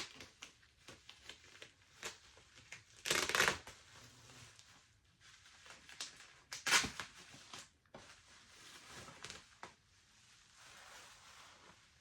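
Packaging being handled and unwrapped by hand during an unboxing: a run of small clicks and rustles, with two louder rustling bursts about three and seven seconds in.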